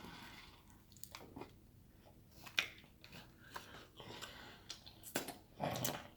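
A person chewing and biting crunchy fried food, with scattered sharp crunches and one louder crunch about halfway through.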